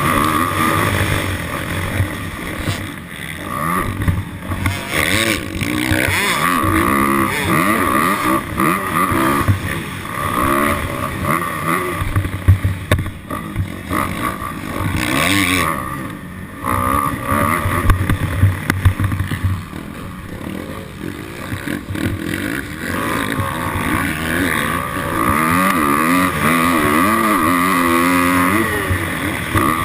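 Dirt bike engine running at varying revs, its pitch rising and falling repeatedly as the throttle is worked, with wind noise on the microphone.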